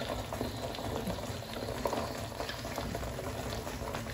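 Thick semolina halwa bubbling and spluttering in ghee in a frying pan, with small scattered pops. The bubbling with ghee at the sides is the sign that the semolina is cooked and the halwa is nearly done.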